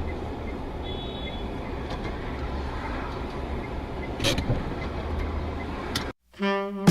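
Steady low rumble of a car driving, road and engine noise, with a brief sharper noise about four seconds in. It cuts off abruptly near the end, and a pitched musical note begins.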